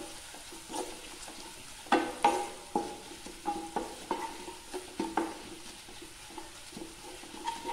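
Wooden spatula stirring and knocking against a nonstick pan while chopped onions, green chillies and curry leaves fry in coconut oil. A soft sizzle runs under irregular scraping taps, and the loudest knocks come about two seconds in.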